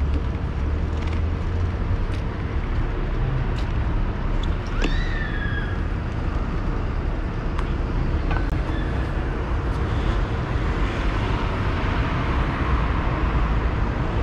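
Street traffic and road rumble picked up by a bicycle-mounted action camera, with wind on the microphone. A short high squeal rises in pitch about five seconds in, and a louder hiss swells from about ten seconds in.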